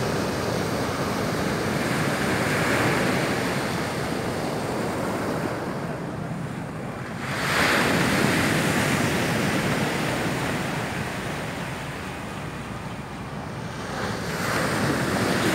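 Waves breaking and washing up a pebble beach, the surf swelling three times (the sharpest surge about halfway through), with wind buffeting the microphone.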